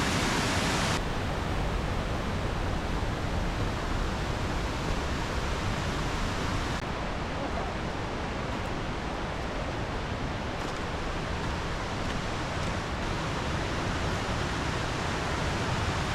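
Waterfall rushing in a steady, even roar of falling water. The hiss turns suddenly duller about a second in and again about seven seconds in.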